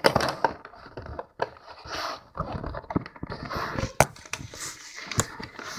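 Cardboard box and packaging of a diecast model airliner being handled as the model is taken out: irregular rustling and scraping, with a few sharp clicks and knocks, one standing out about four seconds in.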